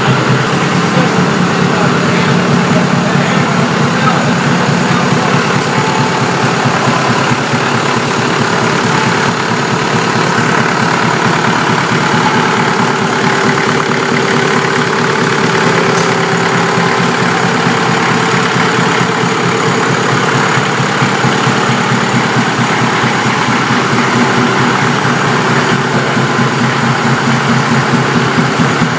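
Engine-driven air compressor for a historic compressed-air foghorn running steadily, with a fast, even firing beat and a low hum. This is the compressor charging the foghorn's air tanks.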